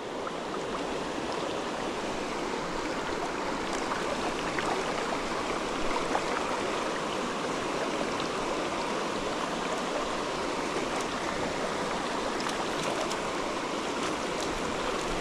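Shallow, rocky stream rushing steadily over a riffle.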